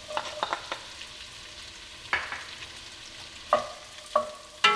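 Diced onion and bell pepper sizzling in melted butter in an enameled Dutch oven while a wooden spoon stirs them. The spoon knocks against the pot several times, and the loudest knock, near the end, rings briefly.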